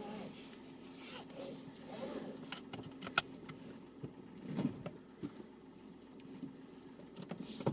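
Rustling and scattered clicks of handling inside a car, with a sharper click about three seconds in, over a faint steady hum.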